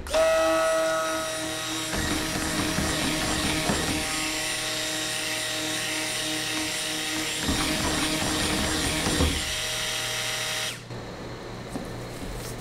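Handheld stick blender (Cuisinart) running steadily in cold-process soap batter, bringing it to trace, with a steady motor whine. It cuts off suddenly near the end.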